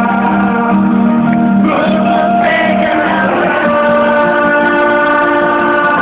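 Live band music in an instrumental passage of a slow ballad: guitar lines over sustained chords, with a pitch glide in the lead about two seconds in.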